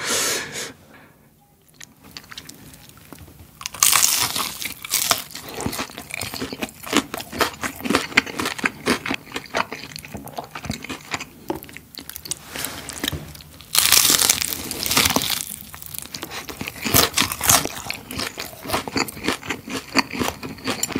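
Close-miked eating of crispy cereal-coated fried chicken: bites and chewing with dense crunching of the crisp coating. The loudest crunches come about four seconds in and again about fourteen seconds in.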